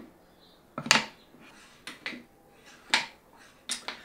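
Plywood pusher blocks of a shop-made gravity edge clamp, swinging on bolted metal linkages, worked up and down by hand: about four sharp wooden knocks and clicks, roughly one a second, as the mechanism closes and opens.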